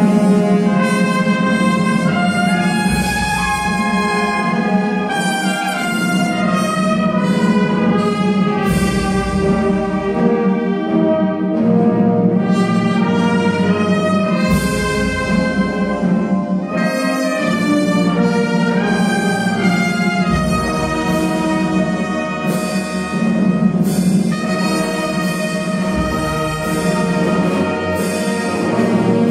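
Wind band with trumpets, saxophones, euphoniums and tubas playing a slow funeral march: held brass chords that change every second or so over low bass swells every few seconds.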